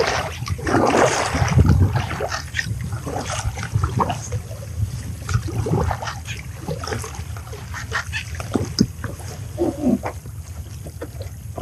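Water splashing around a kayak as its double-bladed paddle is worked, loudest in the first two seconds, with scattered light knocks and clicks.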